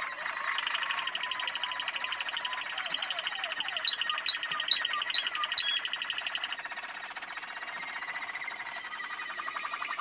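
Waterslager canaries singing: a continuous, rapidly trilled rolling song. Five sharp, loud high notes about half a second apart break into it a little before the middle. The song thins out in the second half and swells again near the end.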